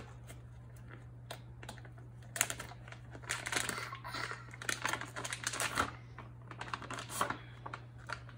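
Crinkly plastic toy packaging being handled and crumpled, crackling in irregular short spells. A steady low hum runs underneath.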